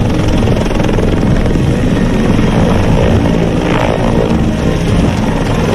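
Helicopter's rotor and turbine engines running loud and steady as it lifts off the pad and rises into a low hover.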